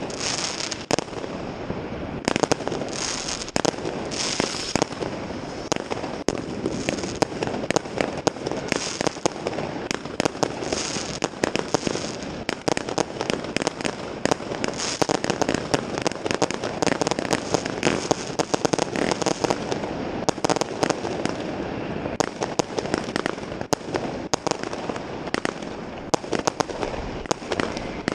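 Many fireworks and firecrackers going off at once at New Year's midnight: a dense, unbroken barrage of cracks and bangs, with brief hissing now and then.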